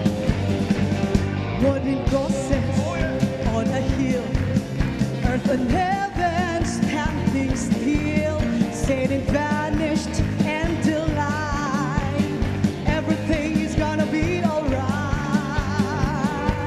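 Worship song with singing over a band playing a steady beat.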